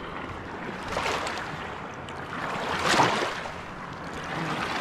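Wake waves from a passing motorboat washing in on a shallow river shore, breaking in surges about every two seconds. The loudest wash comes about three seconds in.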